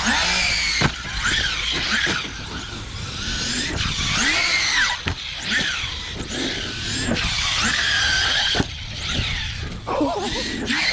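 Electric motor of a large 12S-powered RC car whining as it is repeatedly revved up and down, with a few sharp knocks along the way.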